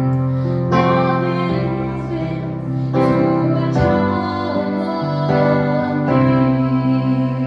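A woman singing a slow song into a microphone over an electronic keyboard playing sustained chords and a bass line.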